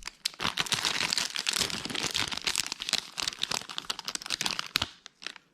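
Crinkly packaging of a pen set being handled and opened, a quick run of crackling and crinkling that stops shortly before the end.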